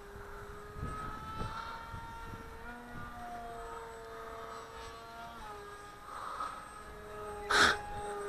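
Propeller motor of a radio-controlled delta-wing model plane running overhead, its pitch shifting up and down several times as it flies past; the pilot takes its sound for a prop that needs balancing a bit. A brief loud burst of noise about seven and a half seconds in.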